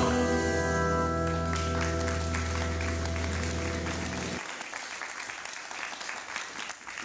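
A band's final chord held and slowly dying away while an audience's applause builds. The chord stops about four seconds in, leaving only the clapping, which thins toward the end.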